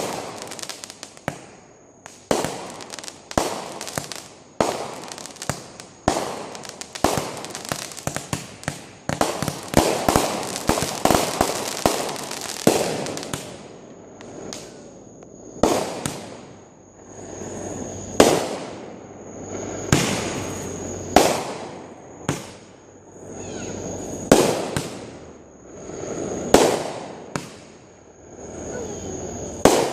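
Fireworks going off: a rapid string of bangs and crackles that is densest about a third of the way in, then slower single bangs every couple of seconds, each preceded by a short swelling noise.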